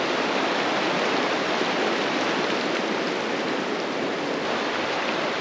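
Rushing creek water, a steady even rush.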